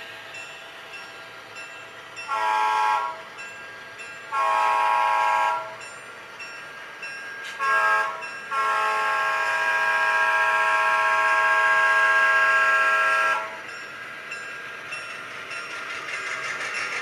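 Sound-decoder diesel air horn of HO scale Southern Pacific GP9 models, a multi-note chord blown in the grade-crossing pattern: long, long, short, then one long blast of about five seconds. Beneath it the decoders' diesel engine sound runs steadily, growing louder near the end as the locomotives draw near.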